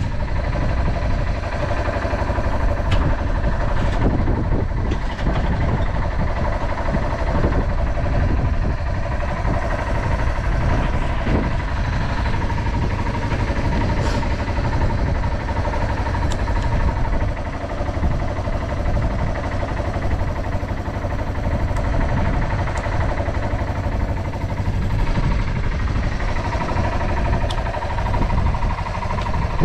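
Yamaha TW225's air-cooled single-cylinder four-stroke engine idling steadily, with no abnormal noises according to the seller.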